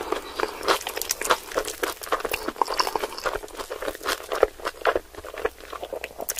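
Close-miked chewing of crispy fried chicken wing coated in melted cheese: a dense, irregular run of crunches and mouth clicks.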